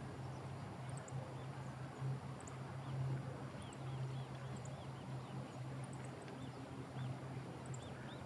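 Faint, short high bird calls repeating irregularly over a steady low hum and outdoor background noise.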